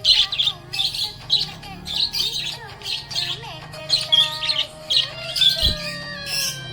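Budgerigars chirping and squawking in quick short calls, about two a second, with longer whistled notes that slide slowly down in pitch.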